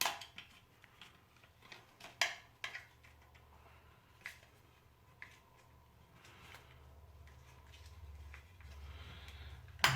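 Steel blackhead-removal tools being set back one by one into the inserts of a metal tin: light, scattered metal clicks and taps, a second or so apart.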